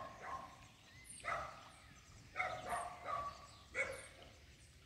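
A dog barking several times, each bark short and separate from the next, with faint high bird chirps.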